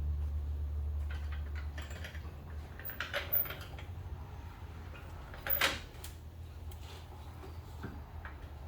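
Floor jack being rolled and pushed into position under a car: a few scattered short knocks and clicks, the loudest about three and five and a half seconds in. A low hum underneath fades away over the first couple of seconds.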